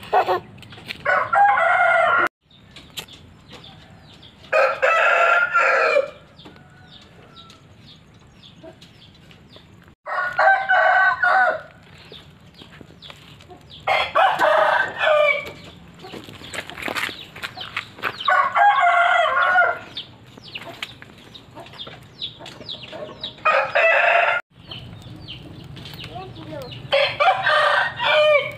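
Roosters crowing again and again, seven loud crows about four seconds apart, each lasting a second or so.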